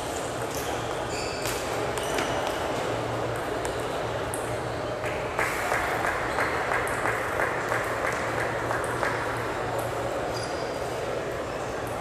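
Steady hall ambience with a run of quick sharp ticks, about three a second, from about five to nine seconds in, like a table-tennis ball bouncing. There are also a few short high squeaks, like shoes on a sports floor.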